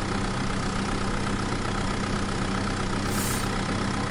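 Vehicle engine idling steadily, a constant hum with a thin higher tone riding over it.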